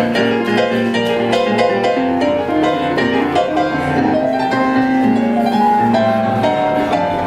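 Piano playing an instrumental passage of a blues-styled song, a melody of held notes over a low accompaniment.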